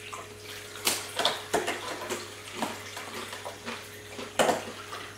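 Water trickling from a toy sink's tap with a faint steady hum, broken by several sharp crunches as crispy deep-fried gujiya are bitten, the loudest near the end.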